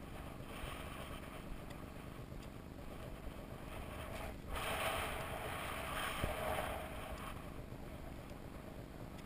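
Snowboard sliding and turning through deep powder snow, a soft hissing swish that swells louder for a few seconds midway, over a low rumble of wind on the microphone.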